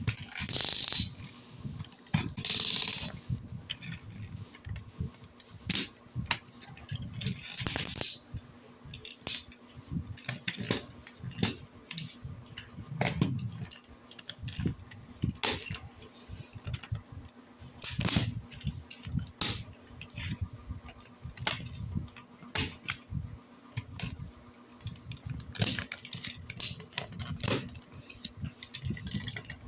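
Plastic Tobot transforming toy robot being worked by hand: irregular clicks, snaps and rattles of its plastic parts and ratcheting joints. A few longer scraping sounds come near the start and about eight seconds in.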